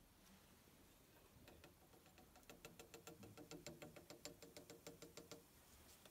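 Faint quick ticking, about five ticks a second for some four seconds, as Samarin antacid powder is poured and shaken from a small paper sachet into a tall glass measuring cylinder of water.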